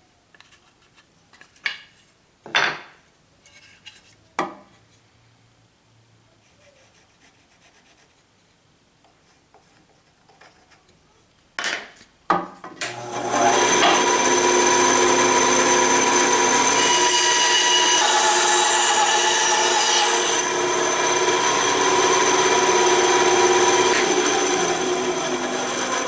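A few light knocks, then about 12 seconds in a bandsaw starts and runs steadily with a mix of steady motor tones and blade hiss as its blade cuts a curved piece out of a block of 2x4.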